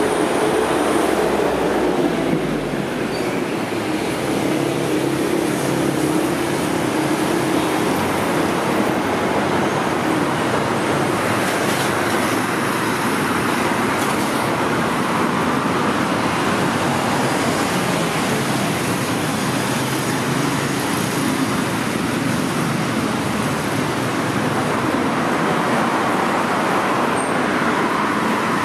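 Steady road traffic noise from cars passing on a busy multi-lane city road.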